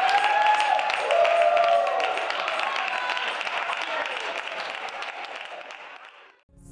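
Audience applauding, with voices cheering and whooping over the clapping, fading out near the end.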